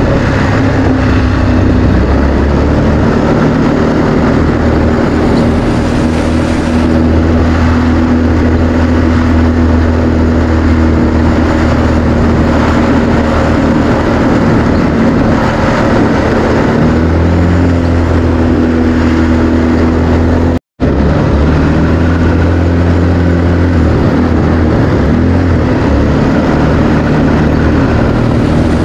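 ATV engine running continuously as the quad is ridden, with a rushing noise over it. The engine note shifts a little in pitch with speed changes. The sound cuts out completely for an instant about two-thirds of the way through.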